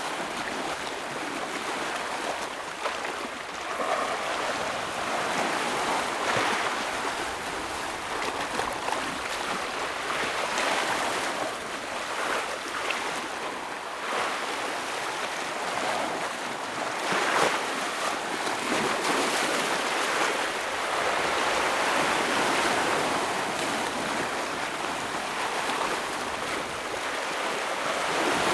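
Ocean waves breaking and washing over rocks: a continuous surging wash that swells and ebbs every few seconds, with sharper splashes now and then.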